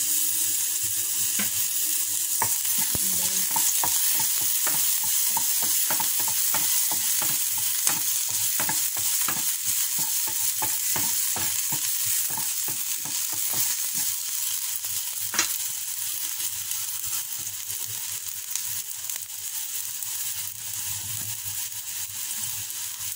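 Minced garlic sizzling in hot oil in a nonstick frying pan, with a utensil stirring it and clicking against the pan several times a second for most of the first half, then one sharper knock.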